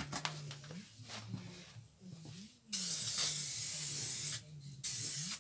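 An aerosol can of acid etch primer spraying onto bare metal in two bursts. The first is a steady hiss of about a second and a half, starting a little before halfway; the second is shorter, near the end.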